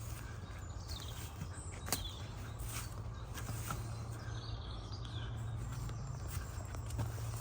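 Footsteps and small clicks and snaps on a woodland floor, with the sharpest snap about two seconds in, and birds chirping now and then.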